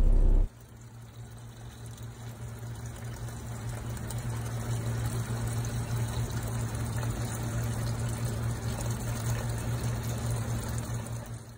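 Fuel pouring in a steady stream from a Lamborghini Murciélago's fuel line into a plastic bucket, splashing into the liquid already there and growing louder over the first few seconds. A steady low hum runs underneath. A louder hum cuts off about half a second in.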